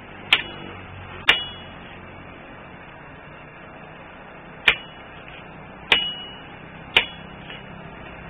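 Hammer blows on a red-hot bolo blade held on a steel anvil as it is forged. There are five sharp strikes at uneven intervals, two close together near the start and three more in the second half, each with a short metallic ring.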